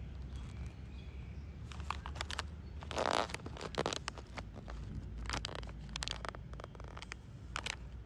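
Crinkling and sharp clicks of a snack package being handled, with a louder rustling crackle about three seconds in, over a steady low hum.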